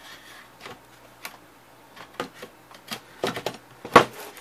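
Scattered clicks and knocks as the amplifier panel is worked out of the back of a Durabrand subwoofer cabinet, with the loudest knock about four seconds in as the panel tips free of the box.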